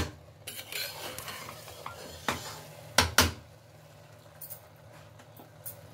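Metal spatula stirring cooked rice in a pressure cooker: soft scraping of rice with a few sharp clinks of the spatula against the pot, two of them close together about three seconds in.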